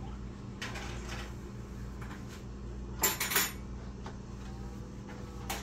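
Kitchen counter work: light handling noises, and about three seconds in a brief crackling rustle and clatter, over a steady low hum.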